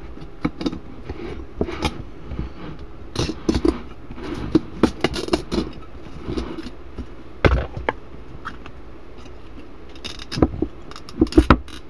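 Crescendo midrange speaker being pulled apart by hand to get its voice coil out: irregular scraping, cracking and clicking of cone, glue and former giving way, with knocks from handling.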